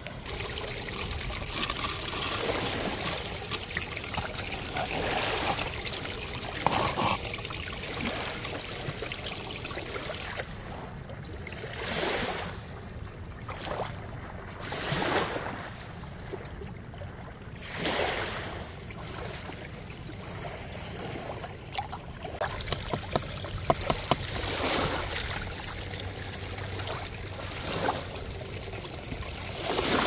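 Pumped water pouring and trickling down a small aluminium sluice box over its mats as gravel and sand are scooped into its head. The rushing swells up and falls back every few seconds.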